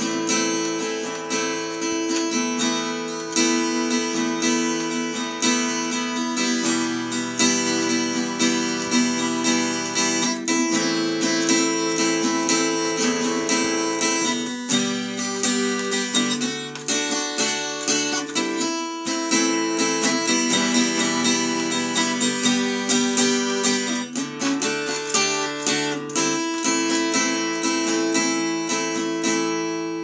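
Solo acoustic guitar playing, a steady flow of picked and strummed notes over chords that change every few seconds; the music stops suddenly at the end.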